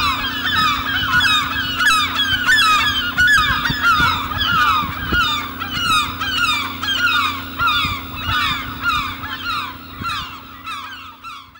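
A flock of geese honking, many short downward-sliding calls overlapping; it fades out near the end.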